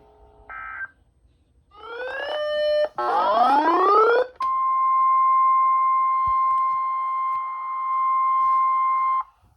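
Weather radio alert: a brief beep, then electronic tones sweeping upward for about two and a half seconds, then the steady 1050 Hz warning alarm tone held for about five seconds before it cuts off. The alarm tone announces a new warning coming over the air.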